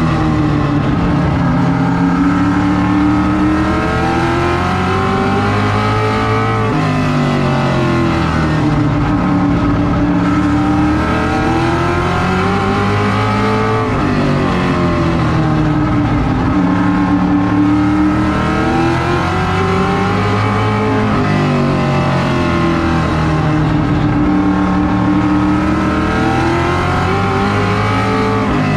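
Vintage modified race car's V8 engine heard from inside the cockpit under racing load. Its pitch climbs on each straight and drops off into each turn, about every seven seconds, lap after lap.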